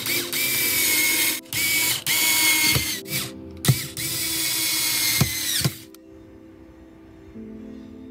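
Small cordless electric screwdriver driving screws through metal angle brackets into wood, running in several short stop-start bursts with a steady motor whine that winds down in pitch as each burst ends. It stops about six seconds in, leaving soft background music.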